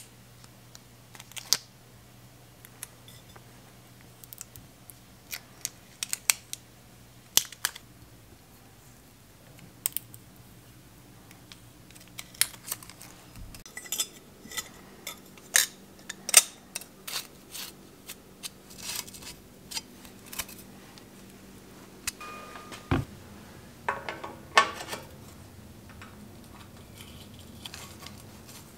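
Small metal clicks and clinks of bicycle crankset parts, Shimano Deore crank arms, chainring and chainring bolts, being handled and fitted. They come irregularly, sparse at first and busier from about halfway, with a short ringing note a little past two-thirds of the way through.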